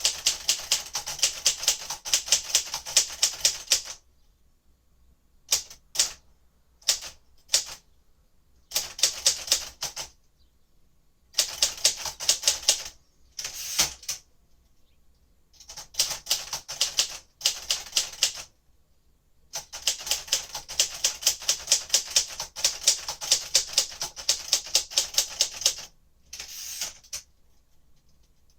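1957 Royal Aristocrat manual typewriter being typed on: runs of quick keystrokes, about seven a second, broken by pauses of a second or two between words and phrases.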